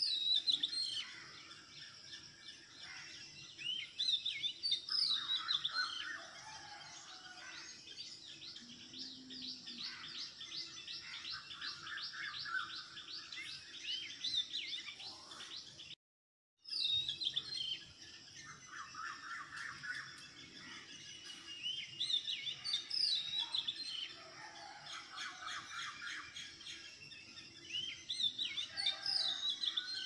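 Many small birds chirping and twittering together, with overlapping quick calls and rapid trills. The sound cuts out for about half a second midway.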